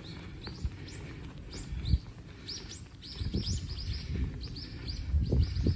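Small birds chirping in quick runs of short, high, downward-sliding notes, over a low rumbling noise that grows louder near the end.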